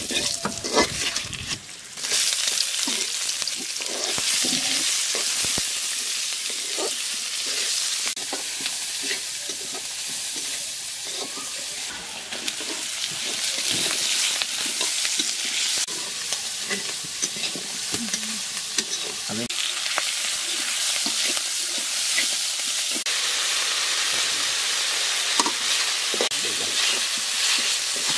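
Oil sizzling in an aluminium kadai as bay leaves, sliced onions and green chillies fry, with a metal spatula scraping and clicking against the pan as they are stirred. The sizzle swells sharply about two seconds in and then holds steady.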